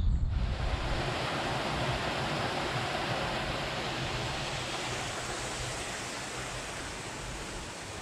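Shallow brook running over stones, a steady rushing of water that starts just after the beginning and slowly fades.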